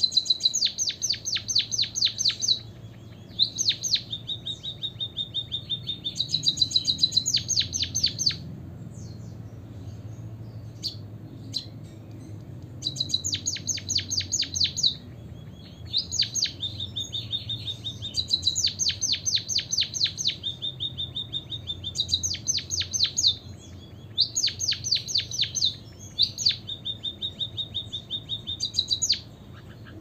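White-headed munia singing: repeated phrases, each a thin, high held note followed by a fast run of clicking notes, about eight times, with a pause of a few seconds about a third of the way in.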